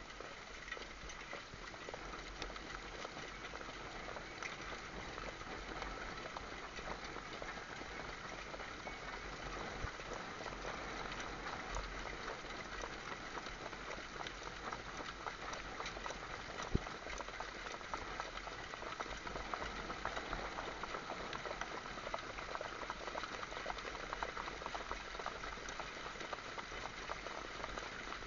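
Steady rushing noise of wind and track at racing speed on a helmet-mounted camera behind a trotting horse in a harness-racing sulky. It is peppered with small clicks, and there is one sharper click a little past the middle.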